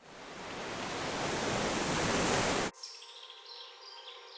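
A rush of steady noise swells up and cuts off sharply just over halfway through, followed by birds chirping.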